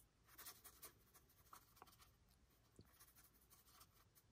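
Faint scratching of a small brush dabbing light gray chalk weathering powder onto a carved hydrocal plaster street: a few quick strokes in the first second, then sparser ones.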